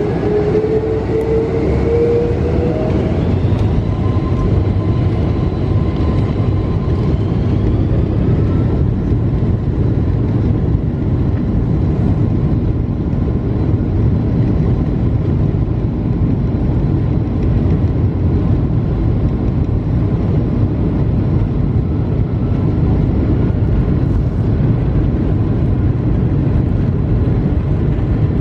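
Boeing 747-436's four Rolls-Royce engines heard from inside the cabin behind the wing: rising whines in the first several seconds as the engines spool up, then a steady loud rumble, as on a takeoff roll.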